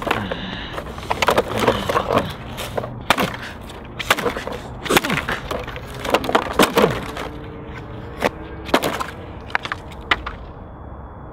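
Repeated hard blows and cracking plastic as a Wacom Intuos drawing tablet and its parts are smashed with hand tools on a rock. The strikes come in irregular clusters and thin out near the end.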